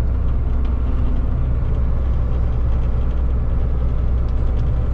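New Holland TC56 combine harvester's diesel engine running steadily at low speed while the combine manoeuvres, heard from inside the cab as an even low drone.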